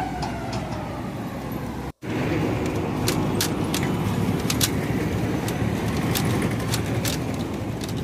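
Street traffic noise: a steady rumble of passing vehicles that cuts out for an instant about two seconds in, with scattered sharp clicks over it after that.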